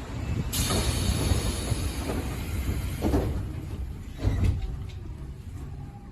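Tobu 10000-series electric train standing at the platform just after braking to a stop: a hiss of compressed air about half a second in, then a few low thumps around three and four seconds in.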